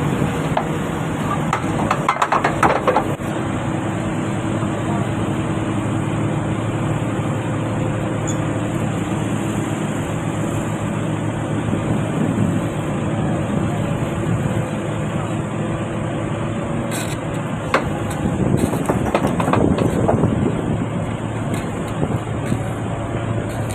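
Diesel engine of a Kobelco crawler piling rig running steadily, with a few irregular metallic knocks and clatters.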